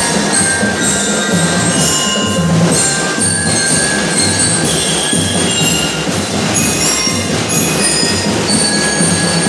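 Drum and lyre band playing: bell lyres ringing out a melody in high metallic notes over a steady beat of snare and bass drums.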